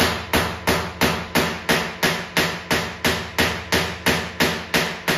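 Small Tesla coil discharging in a rapid train of spark pulses, about three sharp cracks a second, each dying away before the next.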